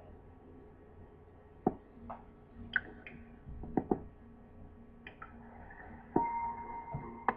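A few scattered light clicks and knocks, then a steady ringing tone that starts about six seconds in and holds.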